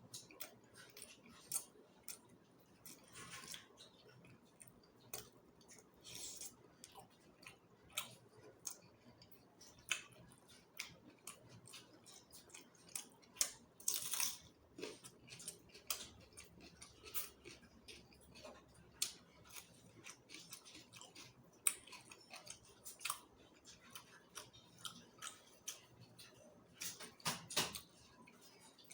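Close-miked eating of chicken feet curry: chewing and mouth sounds, with many sharp, irregular wet clicks and smacks and a few short, louder slurping smears.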